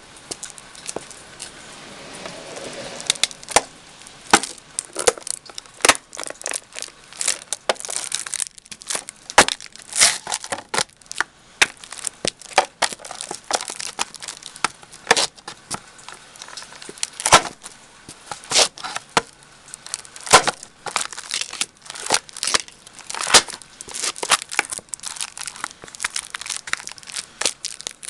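Leather roper boots stomping on and crushing an empty onion container against concrete, with many irregular sharp crunches and crackles as it flattens.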